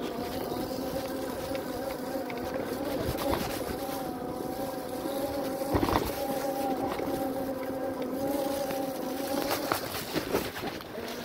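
Brushless front hub motor of a converted e-mountain bike whining steadily under power, over tyre and trail noise on mud, with a few knocks from bumps. The whine stops about ten seconds in.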